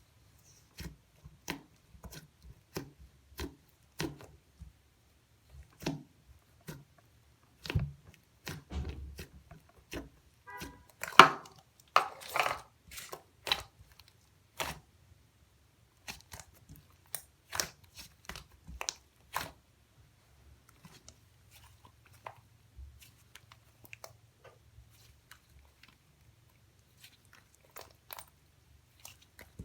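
Hands squeezing and pressing a thick, stiff chocolate slime, giving sharp sticky clicks and pops about one or two a second. A denser, louder run of crackling squelches comes in the middle, and the clicks grow sparse and faint in the last third.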